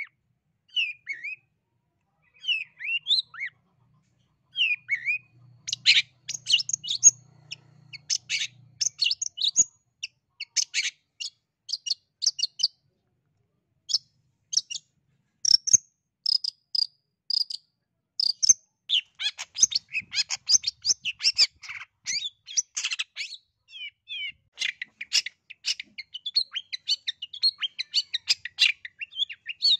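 Long-tailed shrike (cendet) singing a fast, varied song. It starts with short, separate slurred notes, then from about six seconds shifts to dense runs of sharp chips and chatter that become nearly continuous in the second half.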